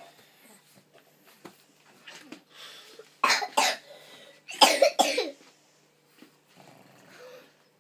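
Pug coughing: two harsh coughs about three seconds in, then a quick run of several more a second later, with fainter breaths between.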